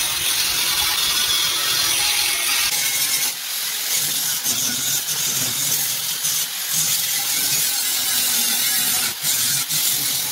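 Handheld angle grinder cutting into a rusted steel trailer floor crossmember: a loud, steady grinding hiss with a faint high whine in the first few seconds, easing off briefly twice.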